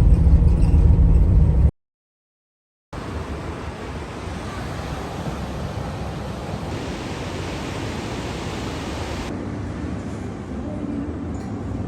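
A motor vehicle's engine rumbling loudly for under two seconds, then cut off. After about a second of silence, a steady rushing noise with no clear events.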